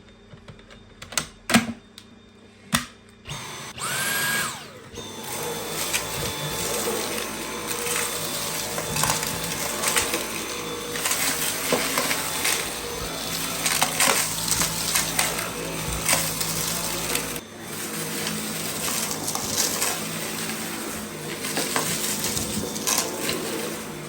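Dyson V8 cordless stick vacuum running at a steady high-pitched whine, with many short crackles and clicks of debris pickup over it. A few sharp knocks come first, then the motor starts up about four seconds in.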